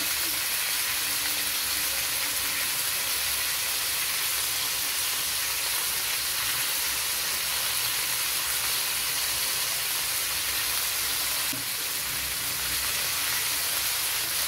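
Vegetables sizzling steadily in a hot wok, an even frying hiss.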